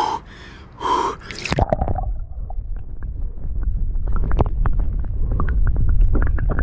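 Two sharp gasping breaths from a man in an ice-cold plunge, about a second apart. Then water churning and bubbling close to the microphone: a loud low rumble crowded with small crackling clicks as he goes under.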